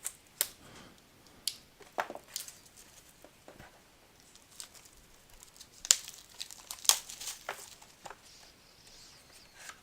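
Packaging crinkling and tearing as a sealed trading-card box is opened by hand, with scattered sharp crackles and clicks, the loudest about six and seven seconds in.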